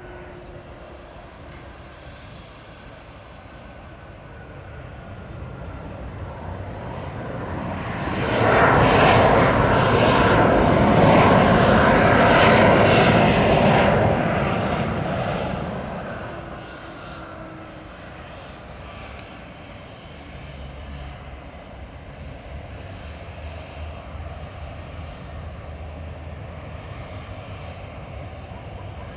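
Twin-turbofan Cessna Citation Latitude business jet passing close on landing: its engine noise swells over several seconds, stays loud for about five seconds, then fades, leaving a lower steady rumble.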